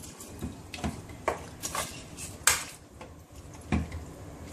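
A metal spoon stirring chicken pieces in a pot, clinking and knocking against the pot at irregular moments, with one louder knock about halfway through.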